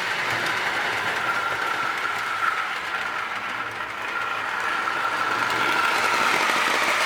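Lionel toy train's little 0-4-0 locomotive running at speed, pulling heavy log cars with die-cast trucks: a steady electric motor whine over the clatter of wheels on the track. It gets a little quieter about halfway through, then louder again.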